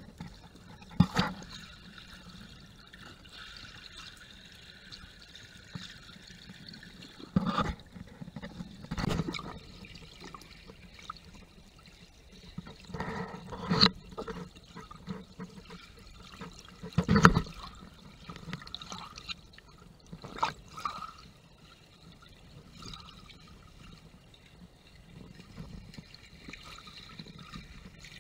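Muffled underwater water noise picked up by a GoPro in its waterproof housing, with about six sharp knocks or splashes scattered through it, the loudest near the middle.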